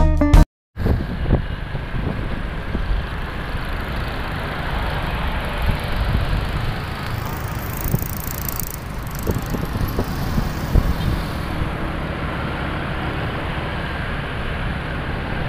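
City street traffic heard from a moving motorbike: a steady rumble of engines and road noise, with wind gusting on the microphone.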